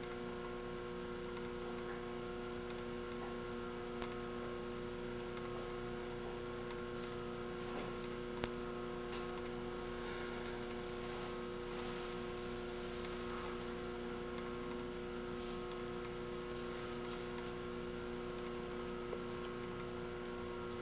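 Steady electrical hum over faint room tone, with a few soft clicks.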